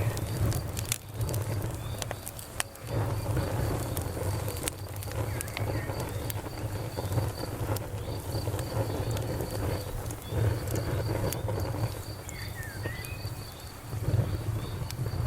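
Campfire wood crackling, with scattered sharp pops, over crickets chirping in a steady rapid pulse. A low rumble runs underneath and dips briefly a few times.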